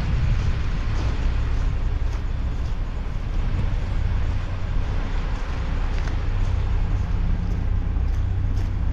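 Pickup truck engine idling, a steady low rumble.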